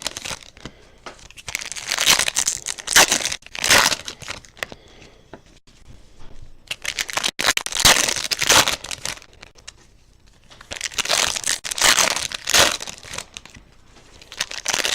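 Wrappers of a box of baseball card packs crinkling and tearing as they are opened and handled. The noise comes in irregular bursts, with short quieter pauses between them.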